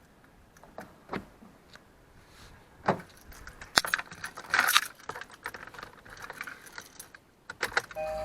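Light metallic jingling and clinking, a few scattered clicks at first and a denser jangle of small metal pieces about halfway through, then a couple more clicks near the end.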